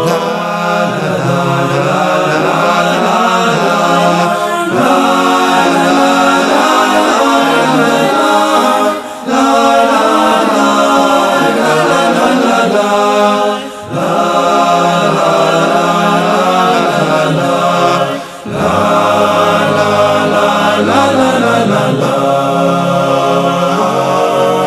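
Synagogue choir singing Hebrew liturgy in several voices, a chant-like melody, with three brief pauses between phrases.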